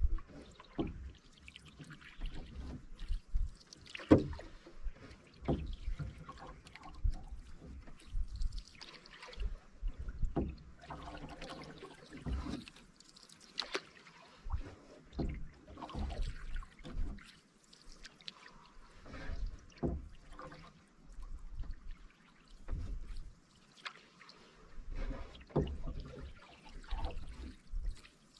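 A canoe being paddled: irregular paddle strokes splashing and dripping in the water every second or two, with low thumps and one sharp knock about four seconds in.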